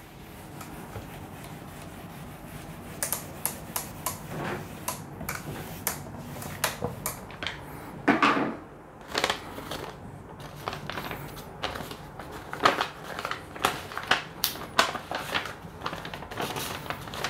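A whiteboard eraser rubbing softly across the board, then paper rustling and whiteboard markers tapping and clicking as they are handled, in a long string of irregular sharp crackles with a longer rustle about eight seconds in.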